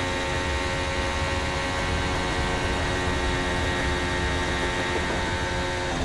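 Formula 1 car's 1.6-litre turbocharged V6 hybrid engine heard onboard, held flat out at high, steady revs with no gear changes, as the car runs in top gear down the straight and through 130R.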